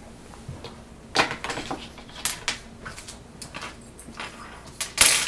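Irregular knocks, clatter and rustling of small objects being handled, with a faint steady hum underneath. The loudest pair of knocks comes near the end.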